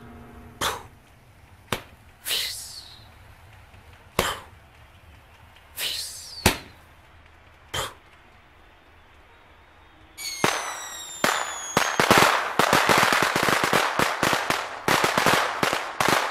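Fireworks: high whistles that fall in pitch, each followed by a single sharp bang, one every second or two. From about ten seconds in comes a dense run of crackling and popping.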